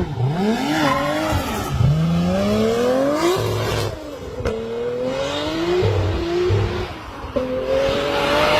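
Toyota Supra engine tuned to about 820 wheel horsepower running flat out on a dyno. The revs climb in several long sweeps and drop back between them, as it shifts up through the gears.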